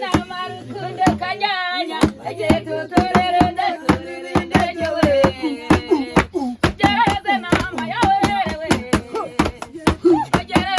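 Singing voices accompanied by sharp, rapid hand claps, several a second, with the melody running continuously.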